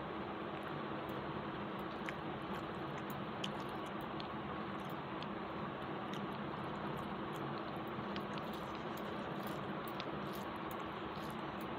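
A person eating rice and curry by hand: faint chewing and small wet clicks as fingers mix the food, over a steady background hiss with a low hum.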